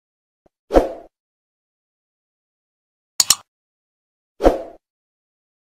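Sound effects of a subscribe-button animation over dead silence: a short whoosh about a second in, a quick double click a little past three seconds, and another short whoosh about four and a half seconds in.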